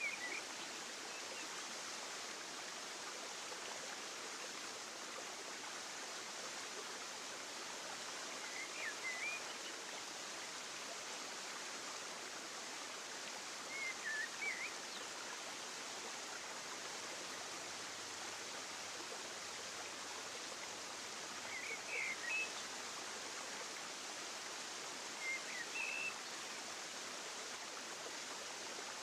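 Steady rushing outdoor ambience, with a few short bird chirps every several seconds.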